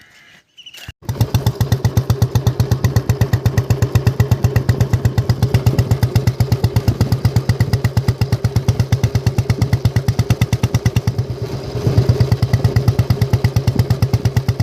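Royal Enfield Bullet's single-cylinder four-stroke engine running at a steady idle with its even thump, coming in suddenly about a second in and picking up slightly near the end. The exhaust goes through a mesh-baffled 'silent' Indore silencer.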